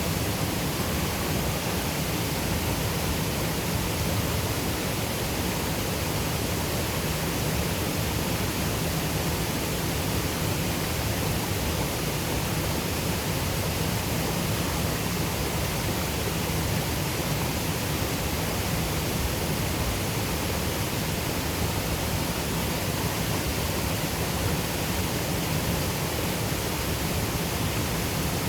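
Waterfall and rushing river water, a steady, even roar of falling and churning water.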